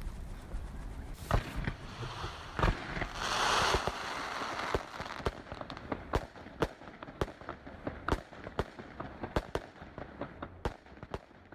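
Fireworks going off: sharp bangs and a hissing burst about three seconds in, followed by a long run of separate crackles that thin out and fade toward the end.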